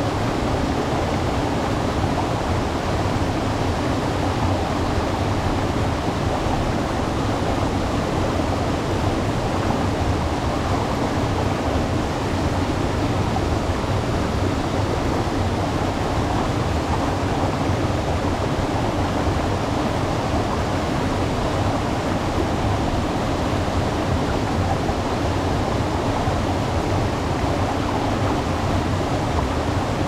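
Waterfall: water falling and splashing in a steady, unbroken rush, heaviest in the low and middle range.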